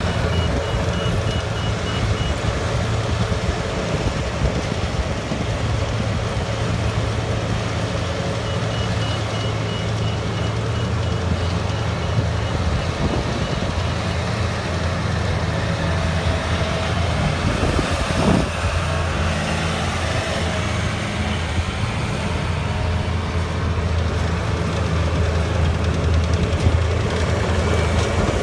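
John Deere sugar cane harvester and a tractor hauling a cane wagon beside it, their engines running steadily under load with a low drone as the harvester works through the cane. A high-pitched beeping comes and goes during the first half.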